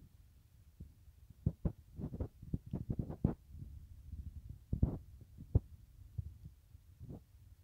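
Irregular dull knocks and crackling rustles of moringa branches and drumstick pods being handled and picked by hand, close to the microphone. They come thickest in the first half, with a few single knocks later.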